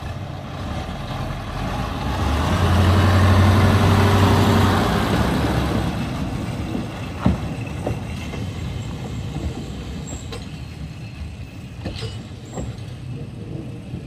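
Z4p diesel locomotive running under power as it moves off, its engine note loudest a few seconds in and then fading as it draws away down the track. A few sharp clacks come as it rolls away.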